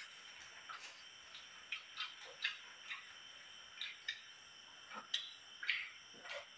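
Close-up eating sounds: quiet, irregular clicks and smacks of chewing and lips, roughly two a second.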